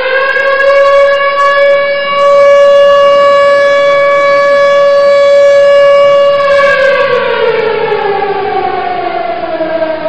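A siren wailing: the tone climbs to a steady high pitch, holds there, then winds down in a long falling slide over the last few seconds.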